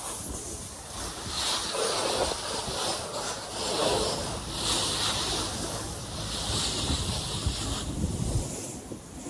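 Pressure washer spraying, its jet hissing against a surface, swelling and fading as the wand sweeps back and forth.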